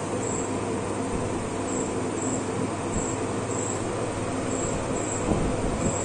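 Steady machine noise: an even whirring hiss with a low hum under it, unchanging in level.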